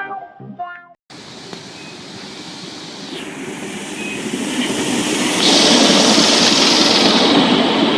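Plucked guitar music ends about a second in; then a train is heard approaching on the rails, its noise building steadily, with a loud hiss joining about five seconds in.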